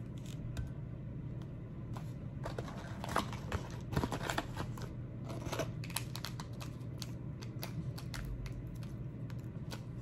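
A coffee sachet shaken, crinkled and torn open by hand: a run of crackly rustles and small clicks, busiest from about two to six seconds in, over a low steady hum.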